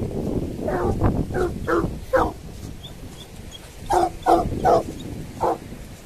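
Basset Hounds barking: several barks in the first two seconds, then four more from about four seconds in. Wind rumbles on the microphone underneath.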